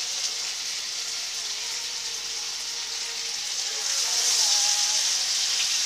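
Sesame oil, olive oil and butter sizzling in a hot frying pan as pieces of cod are laid in. The sizzle grows louder about four seconds in.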